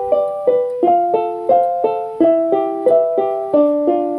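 Music: a piano-like keyboard playing a bright tune, about three notes a second, mostly two notes sounding together.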